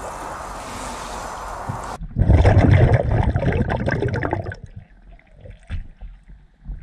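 Water sloshing and bubbling as a person in a leather racing suit goes into a swimming pool, heard muffled through an underwater camera. It starts suddenly about two seconds in, is loudest for the next two and a half seconds, and then dies down to faint gurgling.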